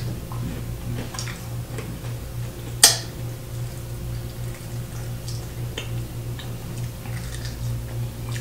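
Close-up eating sounds: scattered small mouth clicks and lip smacks as fingers are licked and food is chewed, with one sharp smack about three seconds in, over a steady low hum.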